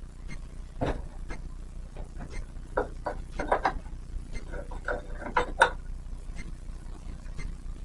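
Scattered knocks and light metal clanks of a piece of steel angle iron being handled and set against the roof framing, loudest about a second in and again around three and five and a half seconds.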